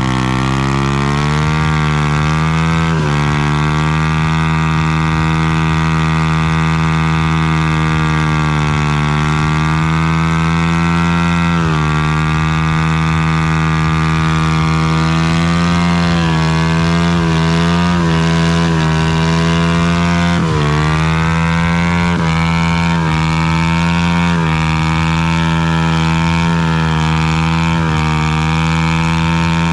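Motorcycle engines running loud and steady, with revs that swell and fall back every few seconds over a continuous low drone.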